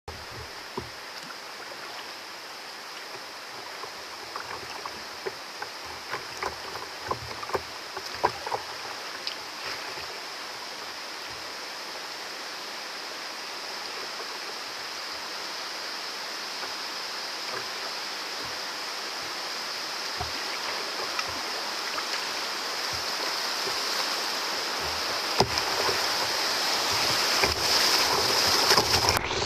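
River rapids rushing, a steady hiss of moving water that grows steadily louder as the kayak drifts toward them. Scattered small splashes and drips sound in the first ten seconds or so.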